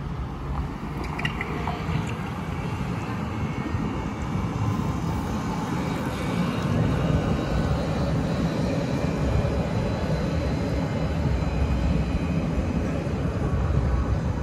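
Electric city trams rolling past close by: a steady low rumble that grows louder about halfway through.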